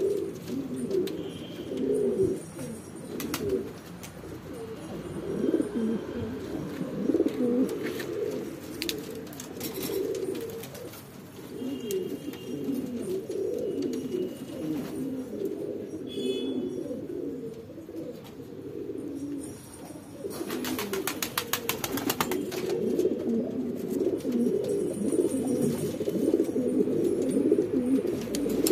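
A loft of capuchine fancy pigeons cooing continuously, many low coos overlapping. A short burst of rapid clatter comes about twenty seconds in.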